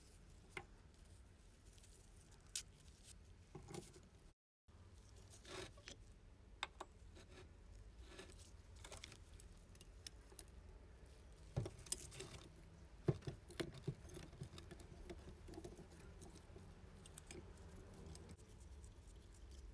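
Sparse light clicks, clinks and taps of small metal parts and tools being handled, over a low steady hum; the sound drops out completely for a moment about four seconds in, and a cluster of sharper knocks comes past the middle.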